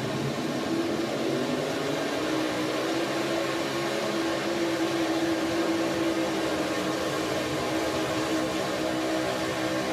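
Modified pulling tractor's engines running at full power on a pull: a loud, steady drone whose main engine note climbs a little and grows stronger over the first few seconds.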